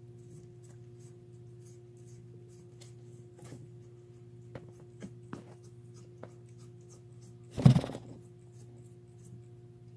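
Cat gnawing on a bone: scattered small clicks and scrapes of teeth on bone, then one short loud burst of noise about three-quarters of the way through.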